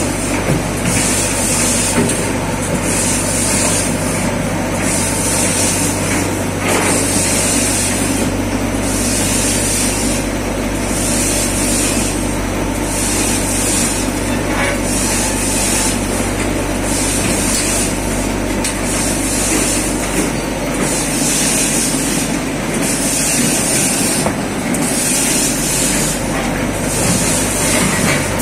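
Hinnli HINN-101C two-line log saw machine running on a tissue production line. A steady mechanical hum and drone is overlaid by a high hiss that comes and goes about every second and a half to two seconds.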